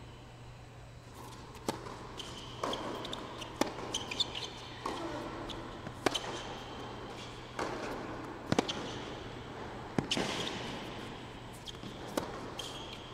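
Tennis rally on an indoor hard court: a series of sharp racquet-on-ball strikes and ball bounces, about one every two seconds.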